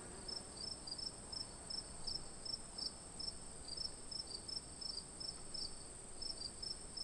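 Insects calling at night: a steady high-pitched buzz with a separate short chirp repeating about three times a second.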